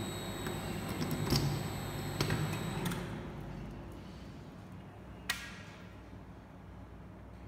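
Tablet and capsule inspection machine running with a steady hum and high whine, while a key clicks and rattles in its cabinet panel lock; the whine stops about three seconds in and the hum falls away. A single sharp metallic click with a brief ring comes about two seconds later.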